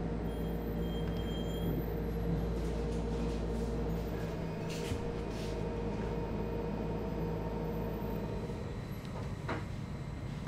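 Steady mechanical hum of kitchen machinery, with a deep rumble that stops about four and a half seconds in and a few light clicks and knocks.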